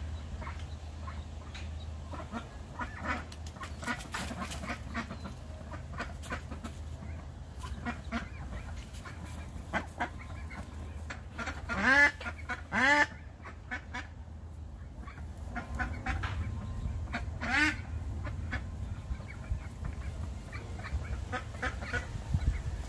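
Domestic ducks calling: a duckling peeping in short high calls throughout, and adult ducks giving two loud quacks a second apart about halfway through, then another a few seconds later.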